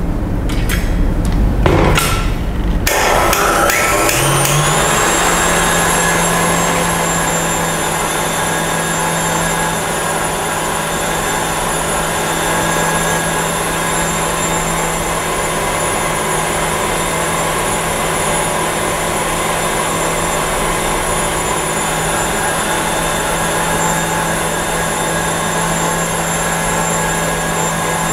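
Tilt-head stand mixer: a few knocks and clicks as the head is lowered onto the glass bowl, then the motor starts about three seconds in and rises in pitch to a steady high-speed hum and whine as the wire whisk beats egg whites and sugar thicker.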